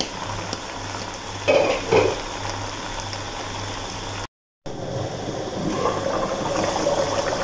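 Wooden spatula scraping and turning cooked pulao rice in a pot over a faint sizzle, with two louder scrapes against the pot about one and a half and two seconds in. After a short break, yakhni broth boiling in the pot.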